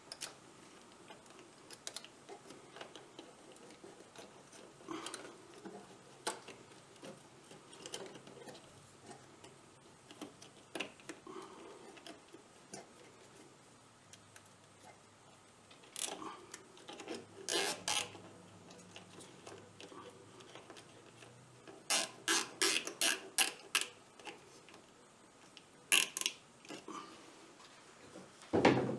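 Handling noises as a rubber terminal boot is worked onto a 12-volt circuit breaker: scattered small clicks and taps, with a quick run of about half a dozen clicks a little past the middle.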